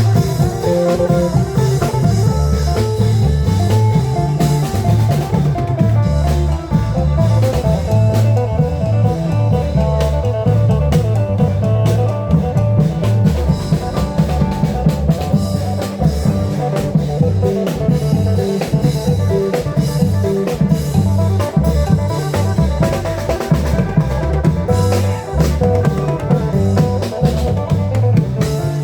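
Thai klong yao long-drum band playing a steady, driving drum beat with a plucked-string melody over it.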